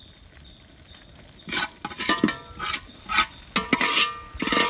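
Metal spoon scraping and knocking against aluminium cooking pots as roasted grated coconut is spooned in: a run of ringing clinks and scrapes that starts about a second and a half in.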